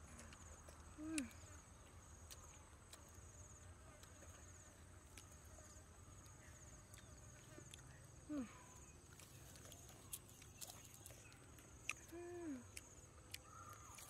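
Insects chirring in a steady, high, pulsing trill, faint overall. Three short low hums or calls stand out, about a second in, about eight seconds in and near the end.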